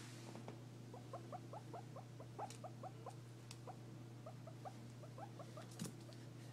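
Guinea pig making two runs of short, quiet, rising squeaks, about five a second, with a few sharp clicks among them.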